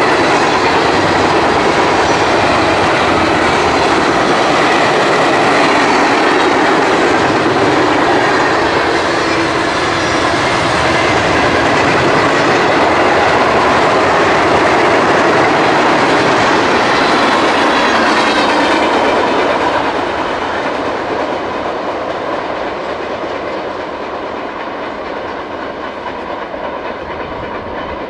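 CSX intermodal freight train's cars rolling past, the wheels running steadily on the rails. The sound eases off from about two-thirds of the way in as the train draws away.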